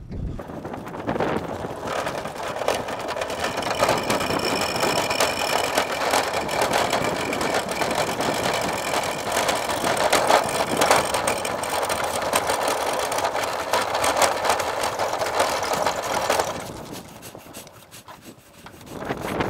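Aluminum jon boat on a wheeled dolly rolling over gravel and pavement: a steady rattling of the wheels and the hull. The rolling stops about sixteen seconds in.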